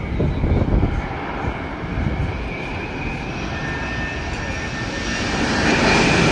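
Jet engines of a Boeing 787-10 airliner on final approach to land, a rushing noise with a steady whine that grows louder as the plane nears, loudest near the end.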